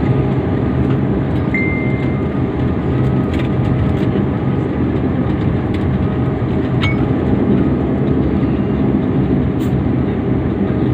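Steady engine and rolling rumble heard inside the cabin of a SpiceJet airliner on the ground just after landing. A short high tone sounds about a second and a half in.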